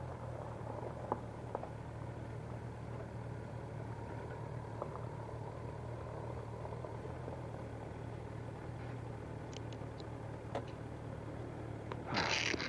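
Motorcycle engine idling steadily, with a few light clicks. Near the end there is a short, louder burst of hiss.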